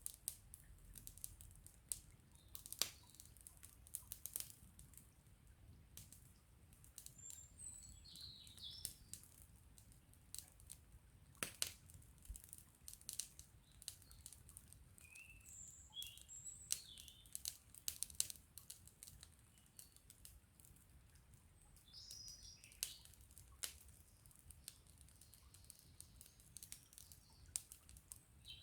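Campfire of burning wood crackling, with irregular sharp pops, two of them loud near 3 s and 11 s. Small songbirds chirp briefly several times over it.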